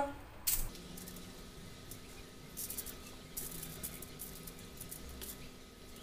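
Aluminium foil crinkling, with small clicks and soft taps as marinated vegetable sticks are laid by a gloved hand onto a foil-lined baking tray. There is a sharp tap about half a second in, and a faint steady hum runs underneath.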